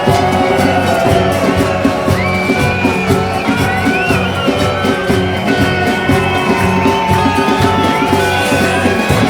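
Music with a steady beat and sustained melodic lines.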